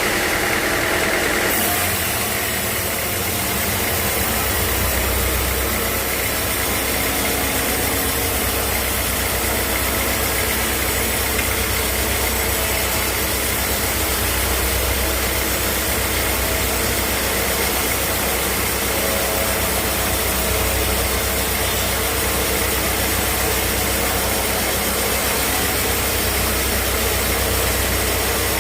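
Sawmill machinery running steadily: a constant motor drone under a dense, noisy hiss, with a shift in the sound about a second and a half in.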